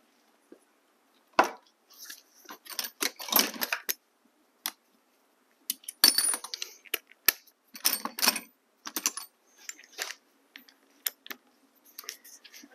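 Metal hand tools clinking and rattling: irregular clusters of sharp clicks and clatters, like tools being picked up and handled.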